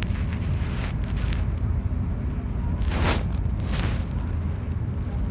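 Steady low rumble of a passenger ferry underway, with a short hissing rush about three seconds in and another just after.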